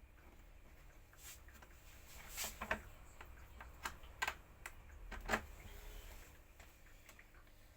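A few light, irregular clicks and knocks of small parts or hand tools being handled, clustered in the middle of the stretch, over a faint low hum.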